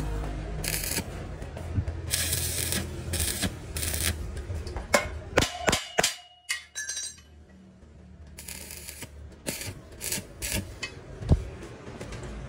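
Stick (arc) welding on steel tubing: the electrode crackles and hisses in short runs of about a second, over a steady low hum. In the second half, between the runs, come a few sharp metallic clicks and a brief clink.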